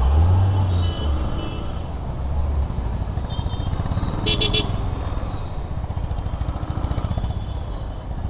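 Motorcycle engine running under way in traffic, its low rumble strongest over the first couple of seconds, with road noise throughout. A vehicle horn toots briefly about four seconds in.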